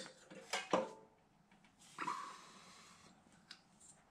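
A few sharp metallic clinks of small engine parts being handled as the cylinder head comes off a mini bike engine, then a brief high whine about two seconds in.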